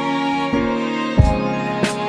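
Instrumental background music: held notes with new notes entering about every half second to second, and a sharper struck note near the end.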